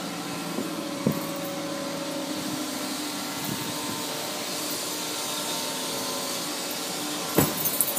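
A car engine idling with a steady hum. A sharp knock comes about a second in, and a louder thud near the end.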